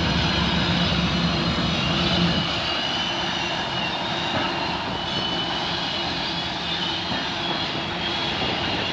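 CP freight train passing at a distance: the diesel locomotives' drone fades out over the first couple of seconds, leaving the steady rumble of freight cars rolling by, with a thin high squeal above it.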